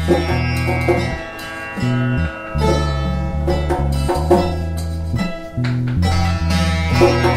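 Instrumental music: a plucked domra melody over low sustained notes that change pitch every second or so, with light percussion.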